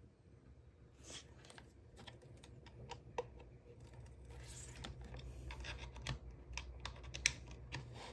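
Faint handling sounds of a USB charging cable: small irregular clicks and rustles as the plug is fitted into the charging port in the base of a plastic crystal table lamp, with a couple of sharper clicks, the loudest about seven seconds in.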